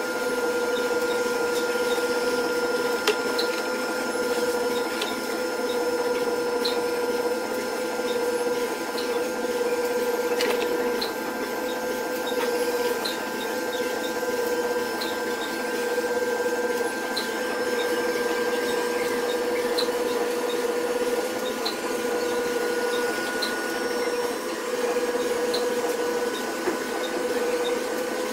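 Steady hum of a small electric motor running continuously at an even level, with a few faint scattered ticks.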